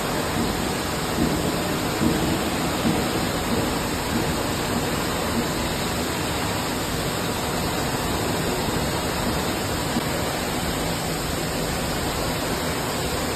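Steady, even rushing noise from a mini coreless induction furnace setup running under test, with no distinct tones or knocks.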